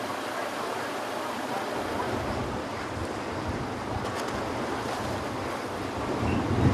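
Storm-driven waves washing over a harbourside quay and choppy harbour water, with wind gusting on the microphone. The wind rumble comes in about two seconds in and is strongest near the end.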